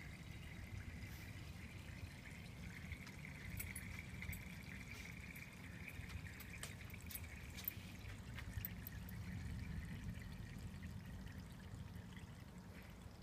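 Apple juice and water trickling steadily through a plastic vortex connector from an upturned bottle into the bottle below, fading away near the end as the top bottle runs empty. A low steady rumble sits underneath.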